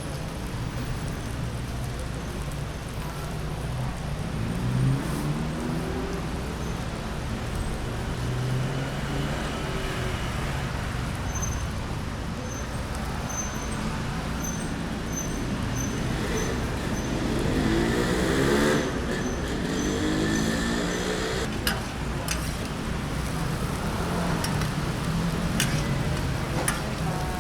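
Street traffic: motor vehicles passing over a steady low rumble, with an engine accelerating about five seconds in and another, louder one around eighteen seconds in. A few sharp clicks come near the end.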